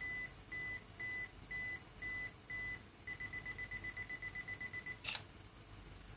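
Camera self-timer counting down: a high beep about twice a second, six times, then a fast run of beeps for about two seconds, ending in the shutter click about five seconds in as a 3-second long exposure begins.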